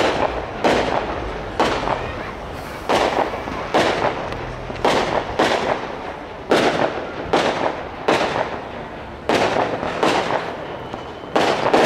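Fireworks display: aerial shells bursting in steady succession, a sharp bang about every second, each trailing off in an echo.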